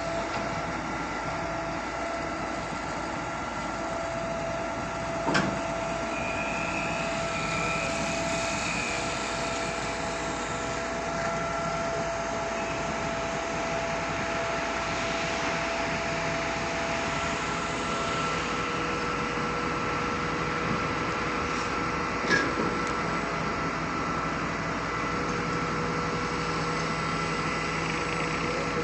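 Concrete pump machinery running steadily, a drone with several held tones, broken by a sharp knock about five seconds in and another about twenty-two seconds in.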